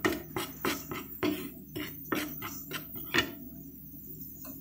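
Wooden spatula scraping and knocking against a nonstick pan as rice flour is dry-roasted in it, about three or four strokes a second; the strokes stop a little after three seconds in.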